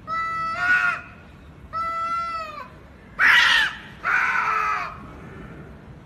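Domestic cats yowling at each other in a standoff: four long, wavering calls, the third, about three seconds in, the loudest and harshest.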